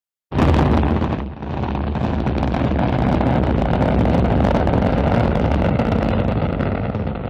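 Rocket launch: the loud, steady rumble of rocket engine exhaust with a crackle through it. It starts abruptly a moment in, dips briefly about a second in, then holds steady and begins to fade near the end.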